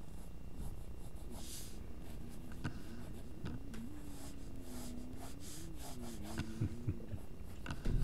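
Graphite lead in a mechanical lead holder scratching across drawing paper in short sketching strokes, with a few light taps. A faint wavering hum runs through the middle.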